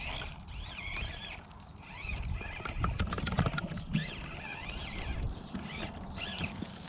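Axial SCX24 Bronco micro RC crawler driving over loose river rocks: the small electric motor and gears whine, rising and falling in pitch with the throttle, while the tyres clatter and knock on the stones.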